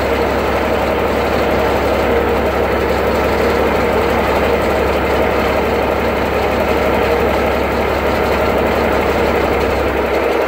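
Cummins NHC-250 inline-six diesel of an M923A1 5-ton military truck running steadily, while its air compressor builds tank pressure toward the governor's cut-out.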